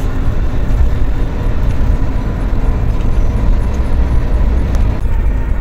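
Steady road noise inside a car cruising on a concrete toll road: a dense, heavy low rumble of tyres and engine.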